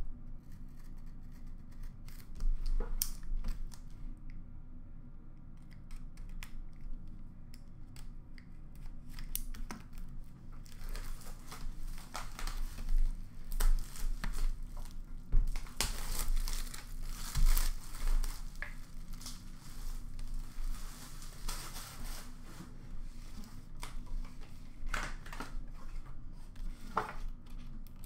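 A sealed cardboard trading-card box being opened by hand: its plastic shrink-wrap cut and torn off with crinkling, amid light scrapes and knocks of the box being handled. The tearing and crinkling is densest through the middle stretch.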